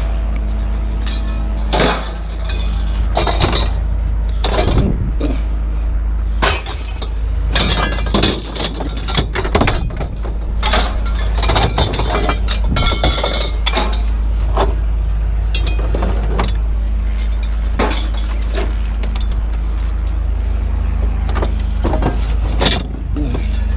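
Pieces of scrap metal clanking and clattering as they are tossed onto a pile, with many irregular hits. A steady low engine hum runs underneath.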